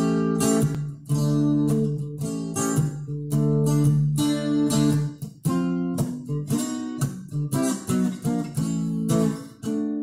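Handmade banjo with a vintage Kodak metal film canister as its body, strummed in a steady run of ringing chords, with short breaks about a second in, midway and near the end.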